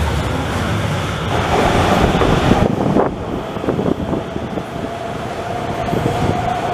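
Underground light-rail train running past at speed and into a tunnel. After a sudden cut, a second train rolls into an underground station with knocks from the wheels and a steady whine as it slows.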